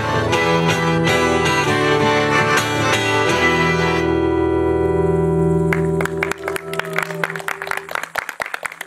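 Accordion and acoustic guitar playing the closing bars of a folk song, ending on a long held chord that stops about six seconds in. A small audience claps after it.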